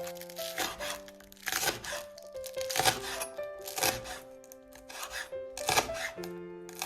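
Background music of slow held notes, with irregular sharp knocks and clatter of food preparation over it, about two a second at most.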